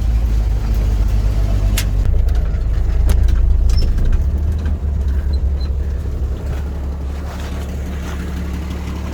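1979 Jeep J10's AMC 258 inline-six running under load as the truck drives in low range, with a few short knocks and rattles; the engine note eases down in steps after about five seconds as the truck slows.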